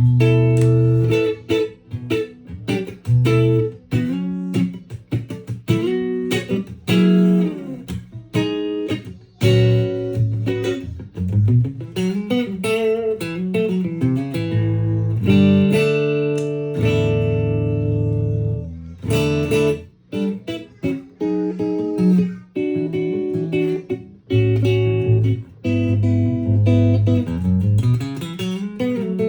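Gibson Les Paul Tribute electric guitar with Lollar P90 pickups, played through a UAD Enigmatic amp-emulation pedal and recorded direct. It plays a run of picked notes and chords, with one long held chord about halfway through and a couple of short breaks after it.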